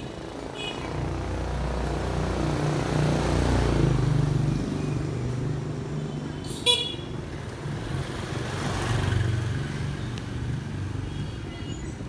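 Motorbikes passing close by on a street, the engine noise swelling and fading twice, with one short horn beep about two-thirds of the way through.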